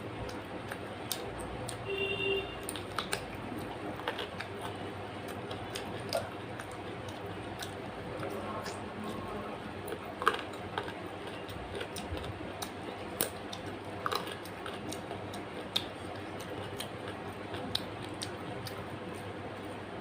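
Close-up eating sounds: chewing with many small, sharp mouth and food clicks scattered irregularly over a steady background hiss.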